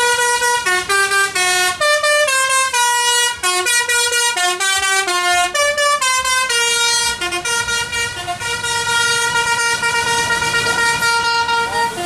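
Bus telolet basuri horn playing a tune on stepped air-horn notes, changing pitch several times a second. From about halfway through it holds one long note, with a few short notes over it.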